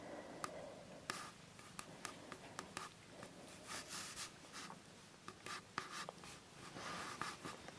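Faint scratchy rubbing and rustling of a hand stroking and scratching a cat's head and fur, with scattered small clicks.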